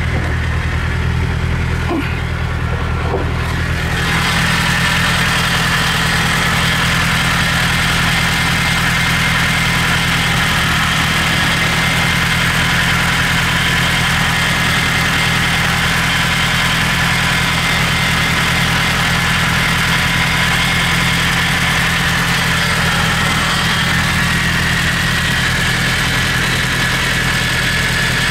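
Nissan Skyline DR30's FJ20ET turbocharged 2.0-litre inline-four idling steadily. About four seconds in, a steady higher hiss joins the engine sound.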